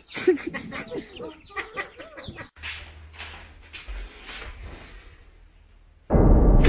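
Chickens clucking for the first two and a half seconds. A hiss then fades away, and a sudden loud noise breaks in near the end.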